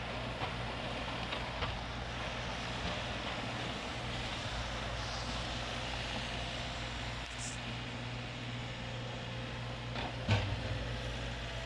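John Deere 3720 compact tractor's diesel engine running steadily while it plows snow, with a single sharp knock about ten seconds in.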